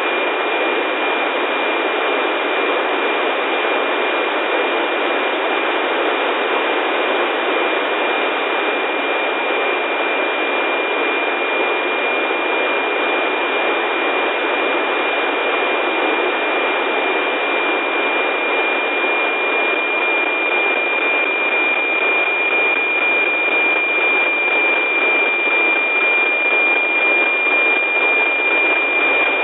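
NOAA 15 weather satellite's APT image signal, FM-demodulated by an RTL-SDR receiver: a steady high whistle from the image subcarrier buried in heavy static hiss, pulsing faintly in the last few seconds.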